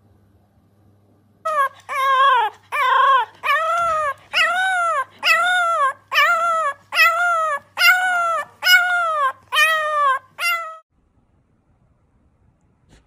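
French bulldog puppy howling in a steady series of about a dozen short rising-and-falling cries, one every second or less, which stop suddenly near the end.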